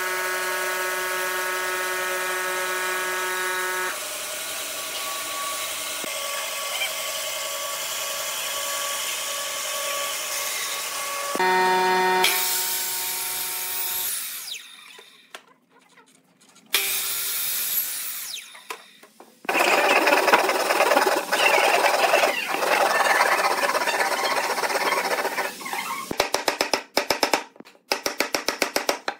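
Woodshop power tools in turn. First a bandsaw runs with a steady motor hum and cuts through a pine board. Then a sliding miter saw cuts repeatedly through pine boards, loud and coarse. Near the end comes a rapid run of sharp clicks as a chisel cuts out a slot in the wood.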